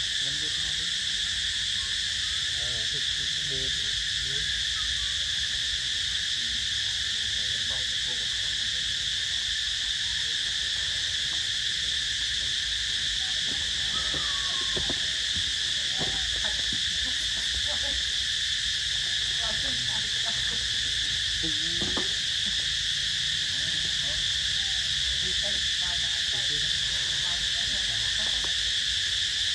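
Steady, high-pitched drone of an insect chorus, unbroken throughout, with a few faint short calls here and there.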